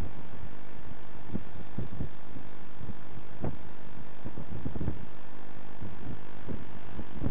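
Wind buffeting the camcorder microphone: irregular low rumbles and thumps over a steady hum.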